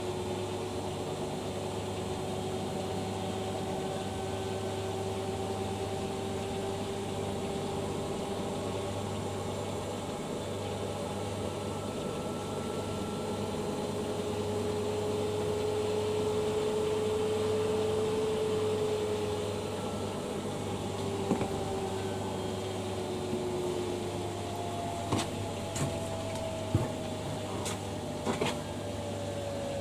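Washing machines on their final spin: a steady motor whine over a low hum, the pitch drifting slowly. About 24 seconds in, a second whine starts falling in pitch as a drum slows down, with several sharp clicks near the end.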